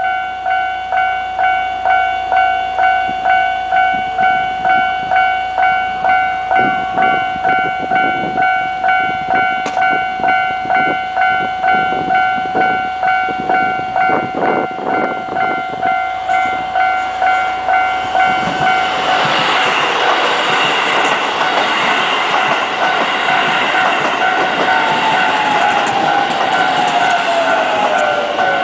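Japanese railway level-crossing alarm ringing in a steady rapid ding-ding, about two strokes a second. About 19 seconds in, a Keisei electric commuter train reaches the crossing and the rumble and clatter of its wheels on the rails take over, with the alarm still sounding underneath. A tone falling in pitch comes near the end.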